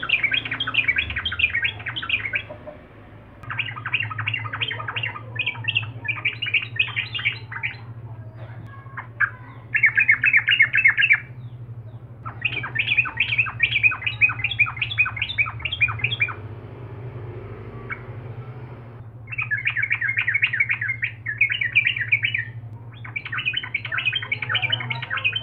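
Yellow-vented bulbul singing loud, rapid chattering phrases in bursts of one to three seconds with short pauses between, over a steady low hum.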